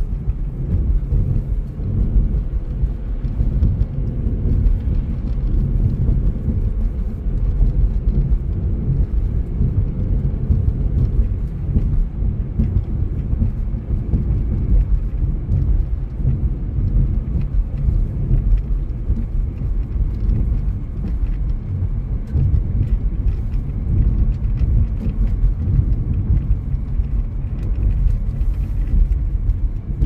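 A car driving steadily along a paved road: a constant low rumble of road and engine noise.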